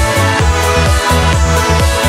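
Background electronic dance music with a steady thumping beat.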